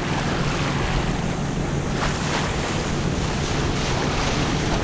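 Sailboat's inboard engine running steadily under way on a test run after a new thermostat was fitted, with water rushing past the hull and wind on the microphone. The level stays even, with no sudden sounds.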